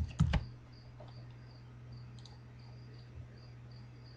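A couple of sharp clicks in the first half second, then a steady low hum under a faint high chirp repeating evenly about two and a half times a second, with one more click about two seconds in.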